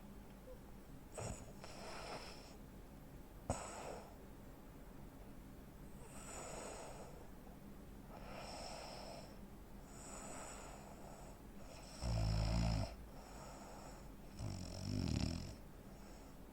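Sleeping man with sleep apnea breathing noisily through several soft, airy breaths, then two loud, low, rattling snores near the end, about two and a half seconds apart. A single sharp click comes about three and a half seconds in.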